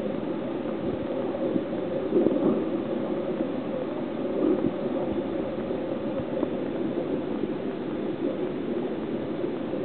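Steady low rushing of moving water with a faint gurgling texture, swelling slightly a couple of times.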